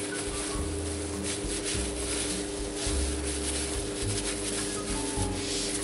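Gloved hand pressing and smoothing a layer of cooked rice flat in a metal baking tray, the plastic glove rustling and rubbing over the rice in short, irregular strokes.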